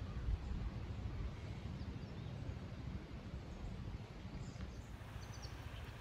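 Wind rumbling on the microphone, with a few faint, short, high bird chirps near the end.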